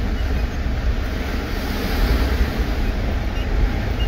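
Steady rumble of a vehicle driving over a sandy track, heard inside the cabin: engine and tyre noise with a strong low drone.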